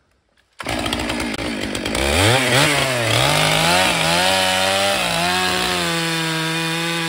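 Stihl MS 881 two-stroke chainsaw that comes in suddenly about half a second in. Its engine revs up and down for a few seconds, then settles into a steady note as the chain bites into the oak log and cuts under load.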